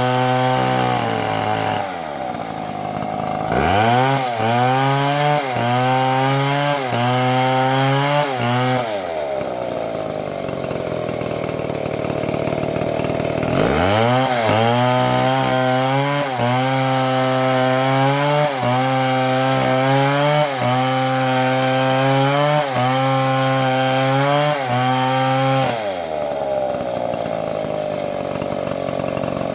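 Large two-stroke chainsaw revved to full throttle and cutting into wood. Its pitch dips and recovers about once a second as the chain bites under load. It eases back toward idle three times and revs sharply up again before each cut.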